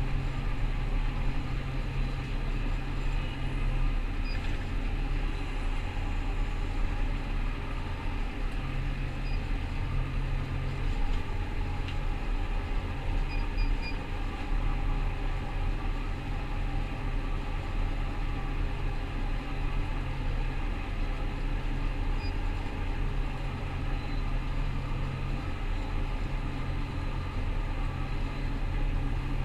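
Rostselmash Vector 425 combine harvester running steadily while harvesting wheat: a constant low engine drone that holds its pitch throughout.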